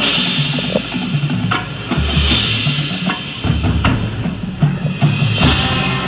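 Marching band playing, with drums and percussion to the fore and a bright crash at the start and another about five and a half seconds in.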